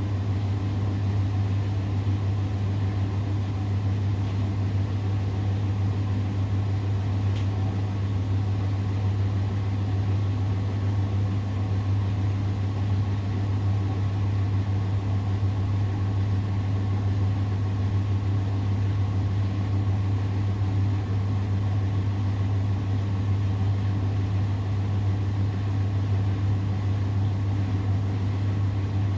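Samsung WW70T4020EE front-loading washing machine on its spin cycle, the drum spinning with clothes at a steady speed and giving a loud, even hum.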